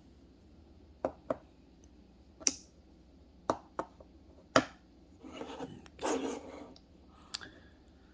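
Utility knives being handled: a scatter of sharp clicks and taps, with two short rubbing or sliding sounds about five and six seconds in.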